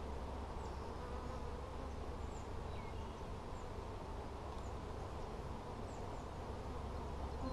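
Honey bees buzzing steadily over an opened hive: a dense, even hum.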